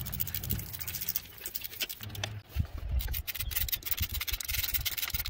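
Hand ratchet clicking in quick runs while an alternator mounting bolt is run in, with low knocks from the tool and hand moving against the engine.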